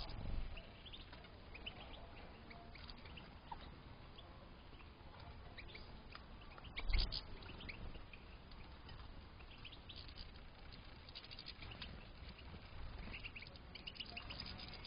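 European goldfinches twittering and chirping in an aviary, short high calls scattered throughout and busier near the end. A dull thump about seven seconds in, with a smaller one at the start.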